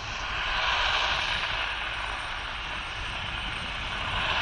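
Steady rushing noise of distant engines, swelling about a second in and again near the end.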